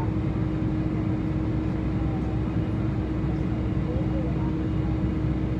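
Steady drone of a Boeing 747-400 taxiing at idle thrust, heard inside the cabin: a constant mid-pitched hum over a low rumble.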